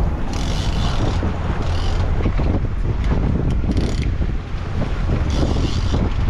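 Boat engine running with a steady low hum, wind buffeting the microphone and water noise around the hull, broken by four short bursts of high hiss.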